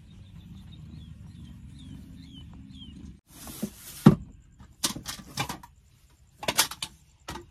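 Overhead cabinet doors in a camper van being pushed shut by hand: a loud knock about four seconds in, then several more sharp clicks and knocks. Before that comes a steady low rumble with a few faint high chirps.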